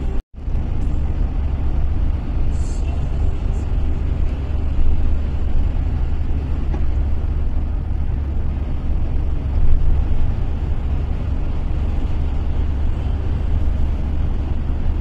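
Steady low rumble of tyre and engine noise from a car cruising at motorway speed, heard from inside the car. The sound cuts out completely for a moment just after the start.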